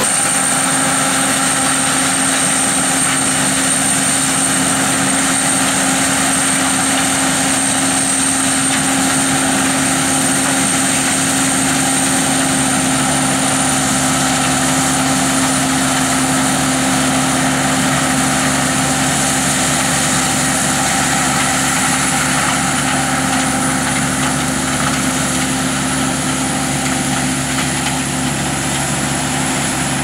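Sakpattana KM-AMT tracked corn combine harvester running steadily while harvesting standing corn: a continuous machine drone with a thin high whine above it, easing off slightly near the end.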